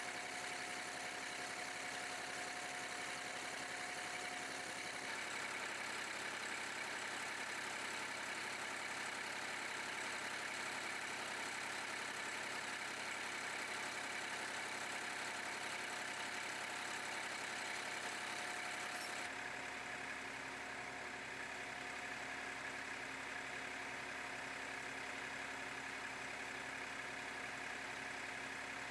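Massey Ferguson 2605 tractor engine running steadily at idle. Its tone shifts abruptly about two-thirds of the way through.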